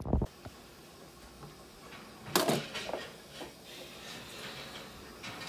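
Quiet room tone with one short clatter about two and a half seconds in, followed by a few fainter knocks.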